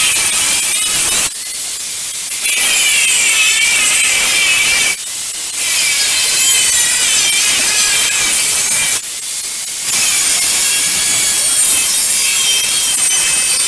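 A power tool cutting about an inch off the legs of a mount. It makes a loud, steady, hissy cutting noise with wavering high pitches, easing off briefly three times.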